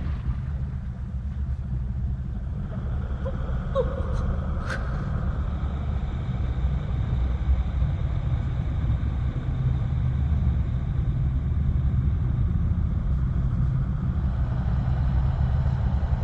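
A low, steady rumble with a few faint small ticks and one short sharp click about four to five seconds in.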